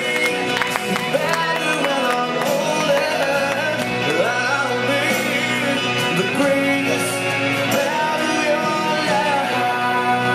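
Song with a singing voice over instrumental backing, playing steadily.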